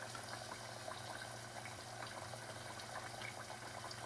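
Garnet-yam fries bubbling gently in a saucepan of canola oil during a low-temperature blanch at about 220 degrees: a faint, steady sizzle, with a low steady hum underneath.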